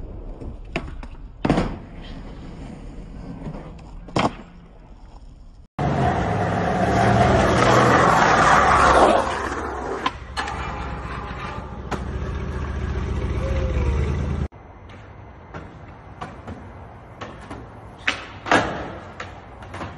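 Skateboard sounds: sharp clicks and knocks of a board popping and landing, with wheels rolling on concrete. In the middle a louder stretch of dense rushing noise lasts about eight seconds and cuts off abruptly.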